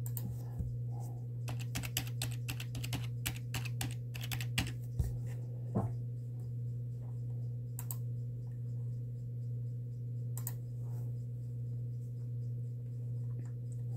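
Computer keyboard typing: a quick run of keystrokes in the first few seconds, then occasional single key presses. A steady low hum runs underneath.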